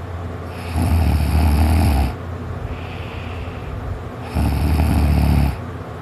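A person snoring in sleep: two loud, deep snores, each a little over a second long and about three and a half seconds apart, with quieter breathing between them.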